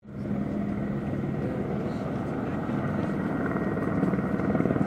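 Helicopter in flight, its rotor chopping steadily, growing a little louder toward the end.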